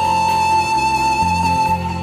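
Background music: a flute-like melody holding a long note over sustained low bass notes.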